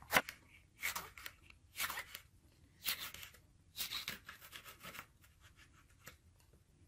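Knife slicing a small red chili pepper into rings on a wooden cutting board: a short, crisp cut-and-tap about once a second, six or so strokes, the last ones fainter.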